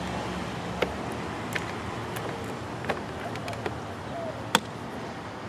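Handling of a plastic rear-view mirror housing: five short, sharp clicks and taps spread over a few seconds, the last one the loudest, over a steady background hiss.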